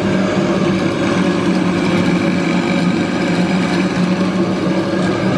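Electric nut butter mill running with a steady, even hum as it grinds hazelnuts into butter.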